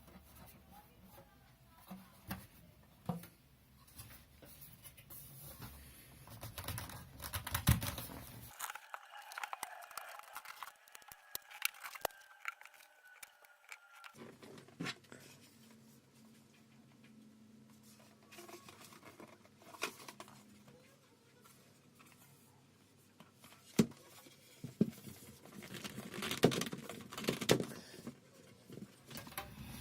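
Scattered clicks, knocks and scrapes from hands and tools working on a QNAP NAS enclosure as it is opened up for a memory upgrade. The noises come in a busier cluster about a quarter of the way in and again near the end.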